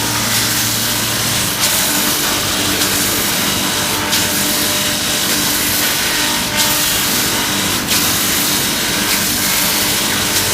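Motorcycle brake lining grinding machine running, its motor humming under a loud, steady abrasive grinding hiss, with brief surges every second or two.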